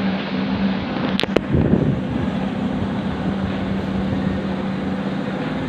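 Steady rumble and hum of an airliner cabin, with two sharp clicks and a brief thump a little over a second in.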